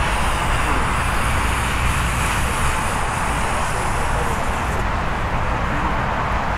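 Colored smoke pots hissing steadily as they burn, with a low rumble underneath.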